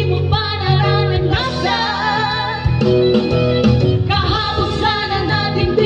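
Women singing a ballad into microphones over instrumental accompaniment, amplified through a stage sound system, holding long notes with vibrato.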